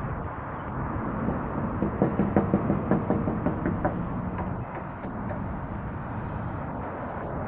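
Scruffy paintbrush dabbing paint in quick light taps: a run of about six taps about two seconds in, with fainter taps around it, over a steady low background rumble.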